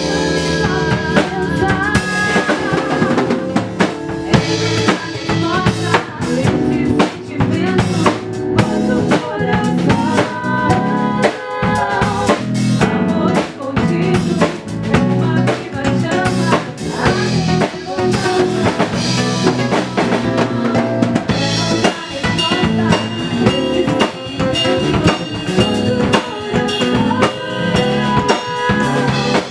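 A band playing an instrumental passage: drum kit with snare, rimshots and bass drum under pitched instruments, at a steady beat.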